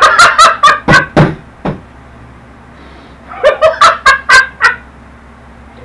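Hearty male laughter in two loud bouts of rapid ha-ha bursts, the second starting about three and a half seconds in.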